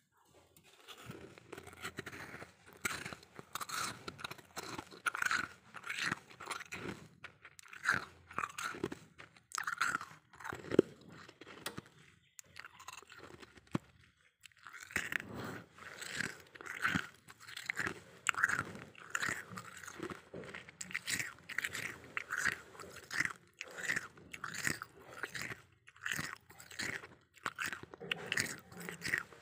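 Freezer frost crunching in rapid, repeated short crunches, stopping for about two seconds midway.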